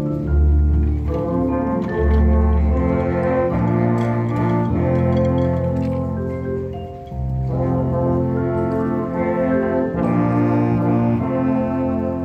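Marching band playing sustained brass and saxophone chords over low bass notes, the chords changing every second or two. The music thins briefly about seven seconds in, then the full chords return.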